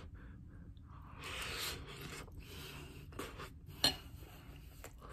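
Eating sounds: a person chewing a spoonful of rice, egg and beef, with soft scraping and one sharp clink of a metal spoon against the dish just before four seconds in.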